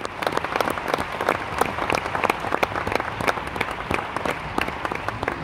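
Theatre audience applauding, many hands clapping densely, dying down near the end.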